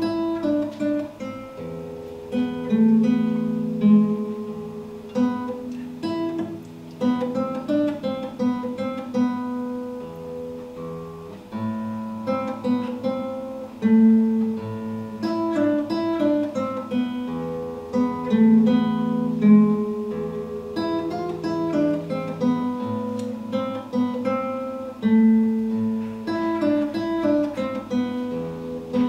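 Acoustic guitar played solo: a continuous run of plucked notes over longer-held bass notes.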